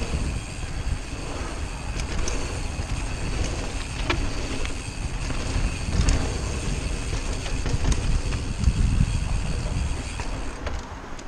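Mountain bike descending a dirt trail at speed: a continuous low rumble of tyres and wind on the rider-mounted camera's microphone, with a few sharp knocks from bumps. A steady high whine runs along with it and stops about ten and a half seconds in.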